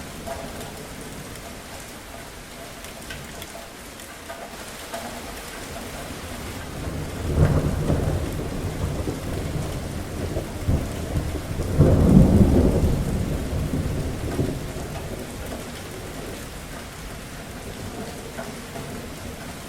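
Steady rain falling, with two rolls of thunder: one about seven seconds in, and a louder one a few seconds later that rumbles and fades away.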